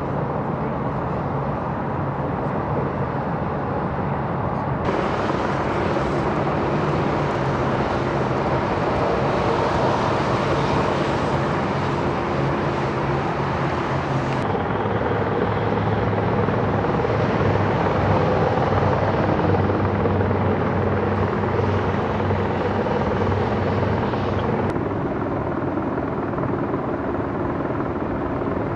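Helicopter hovering overhead: a steady engine and rotor noise with a low hum, its tone shifting a few times.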